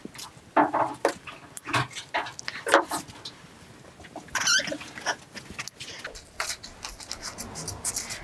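Craft tools and supplies being picked up and moved about on a worktable while searching for scissors: a string of light clicks, knocks and rustles, with a few louder knocks in the first three seconds.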